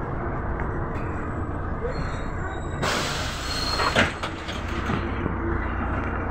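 Cabin of a MAZ-107.466 city bus with its diesel running as a steady low rumble. About three seconds in, a burst of compressed-air hiss lasts just over a second and ends in a sharp thump.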